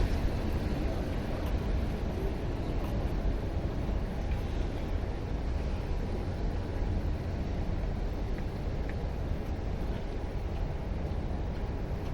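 Steady low rumble of city street noise: distant traffic and ambient hum, with no distinct events.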